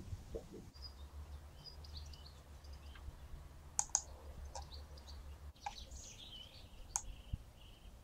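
Faint outdoor ambience of small birds chirping now and then, with several sharp clicks from about four seconds in and a low hum that stops a little past halfway.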